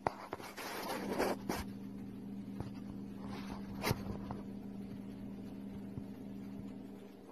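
Scraping rustles of loose sand and grit as a viper shimmies its coils down into the sand, loudest about a second in and again near four seconds, over a steady low hum.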